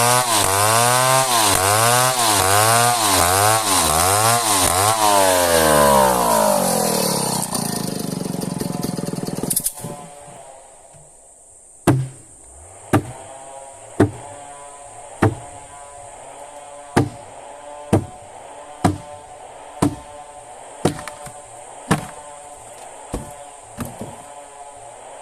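Two-stroke chainsaw cutting into merbau hardwood, its engine speed surging up and down, then winding down and stopping about ten seconds in. After a short pause come about a dozen sharp, ringing knocks, roughly one a second.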